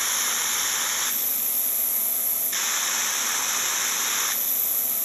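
Hoover Clean Slate spot cleaner running with its hose rinse tool fitted: a steady high motor whine, with a hissing rush of water sprayed and sucked back through the hose while the trigger is held. The rush stops about a second in and comes back for nearly two seconds from about two and a half seconds in.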